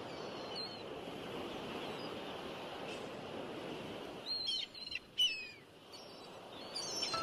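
Wild birds chirping from the shore over a steady outdoor hiss. A quick cluster of sharp, falling chirps about four to five seconds in is the loudest part, with more chirps near the start and near the end.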